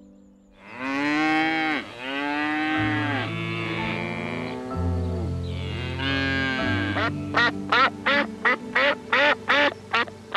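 Wildebeest giving four or five drawn-out lowing calls, then a duck giving a quick series of about eight short quacks, over soft piano music.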